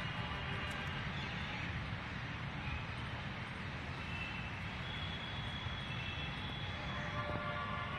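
Steady outdoor background noise, a low even rumble, with a few faint high chirping tones here and there.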